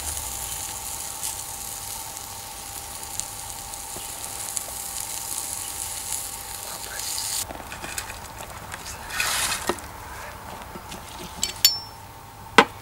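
Grilled chicken sizzling on a steel grill grate over campfire coals, a steady hiss with faint crackles, cut off sharply about seven seconds in. After that comes quieter background, then a couple of sharp clinks of cutlery on a plate near the end.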